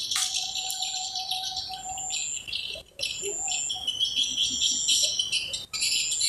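Wild birds and insects chirping together in a dense, continuous chorus of high twitters and short whistles, with one steady mid-pitched whistle held for about two seconds near the start.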